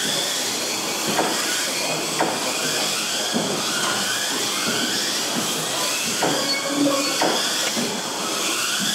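A pack of Kyosho Mini-Z RC cars racing: small electric motors whining, their pitch rising and falling as the cars speed up and brake, over a steady hiss of tyres on foam tiles, with a few short knocks.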